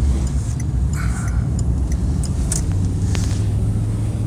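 Steady low engine and road rumble heard inside a moving car's cabin, with a low engine hum settling in about a second in and a few faint clicks.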